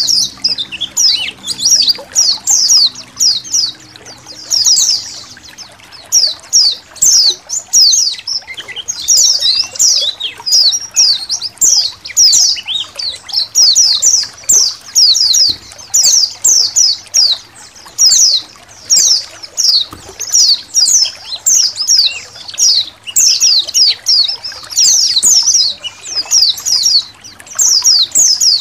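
A colony of white-eyes (pleci) chirping together in rapid, overlapping high twitters, over trickling water.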